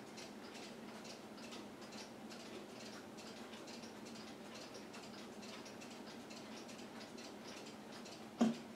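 Clock ticking softly and evenly, with a single louder knock near the end.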